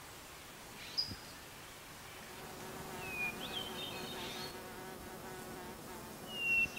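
A flying insect buzzing with a steady low hum that starts about two seconds in and fades near the end. Short bird chirps come in a few times over faint outdoor background noise.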